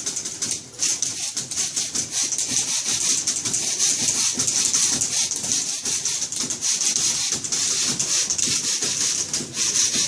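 Several manual typewriters typed together in a dense, continuous clatter of rapid keystrokes, played as a percussion piece.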